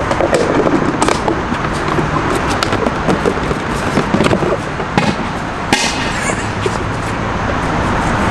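A firecracker going off muffled inside a closed foam-mat box: a few sharp pops, the strongest about six seconds in, over steady traffic noise.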